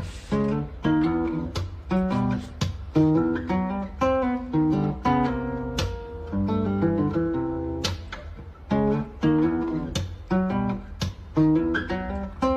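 Background music on acoustic guitar: a run of strummed and plucked chords.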